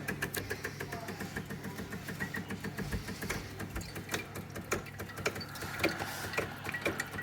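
Decent Espresso machine's pump running at the start of a shot: a steady hum with rapid, even ticking.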